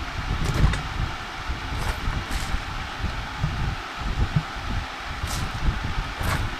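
Wind rumbling on the microphone, with a few faint, short scrapes or rustles.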